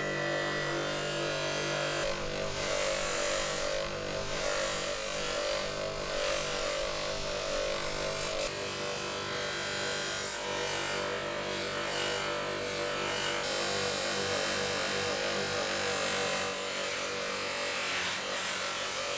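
A power tool running steadily with a rough, abrasive noise over a constant motor hum, fading out near the end.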